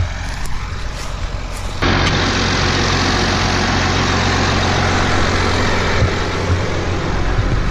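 Combine harvester running steadily with a low engine hum; about two seconds in, the sound abruptly grows louder and fuller, a broad rush of machine noise that keeps on.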